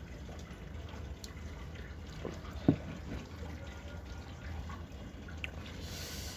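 Whisky being sipped neat from a glass tumbler: faint small liquid and handling sounds over a low steady hum, with one soft knock of the glass about two and a half seconds in.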